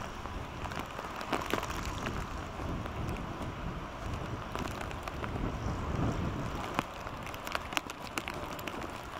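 Rain falling, with many scattered sharp drop taps over a steady low wind rumble.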